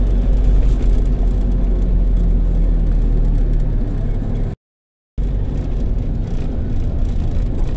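Steady engine and road rumble heard from inside a moving vehicle's cabin while driving. The sound cuts out completely for about half a second near the middle, then resumes.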